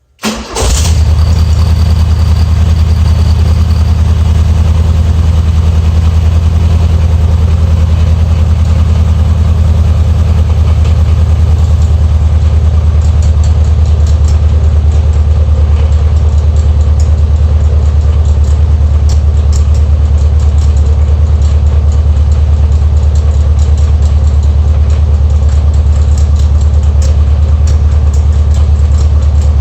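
Air-cooled Volkswagen Beetle flat-four engine starting up and settling at once into a steady idle. The abnormal noise it is making is traced by the owner to near the alternator pulley, which he suspects is running off-centre.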